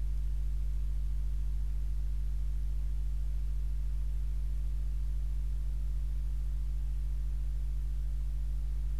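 Steady low electrical hum with a ladder of overtones, unchanging throughout: mains hum picked up by the recording setup.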